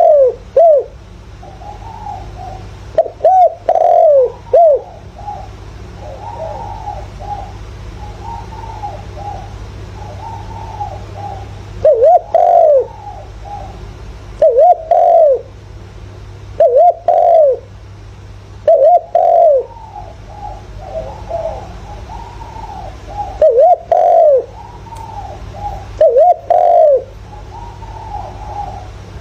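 Spotted dove cooing as a decoy call: loud, short coo phrases of two or three notes come every few seconds, about eight times. Fainter cooing from other doves fills the gaps, over a steady low hum.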